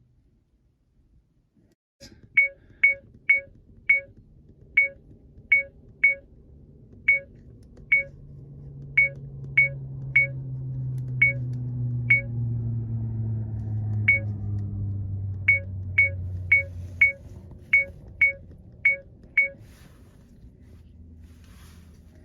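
Small electronic dashcam beeping at each button press: about two dozen short, identical beeps at an uneven pace, while the camera is being set up by hand. Under them a low hum swells in the middle and then fades.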